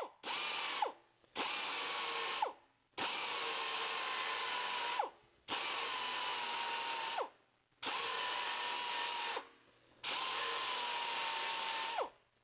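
Narrow belt file sander grinding on the steel door skin to erode away a spot weld. It runs in six short bursts of one to two seconds, each a steady whine with a hiss that falls in pitch as the tool spins down between bursts.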